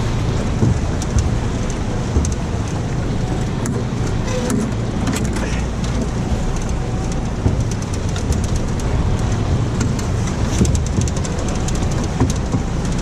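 Steady low rumble on a boat on the river, with scattered light clicks and ticks throughout.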